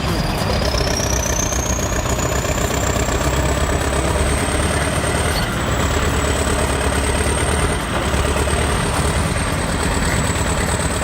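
Heavy diesel engines of Caterpillar D9 bulldozers and a scraper running hard under load, push-loading the scraper. A high whine rises over the first few seconds and then holds steady over the deep engine noise.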